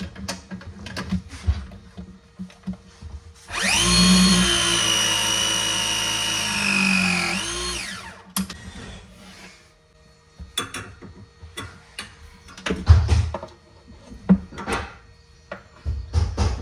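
Battery-powered pipe press tool crimping a copper press fitting on copper pipe. Its motor starts about three and a half seconds in, whines with a slight sag in pitch as it presses, then rises briefly and cuts off about four and a half seconds later. Scattered clicks and knocks of the tool and pipe being handled before and after.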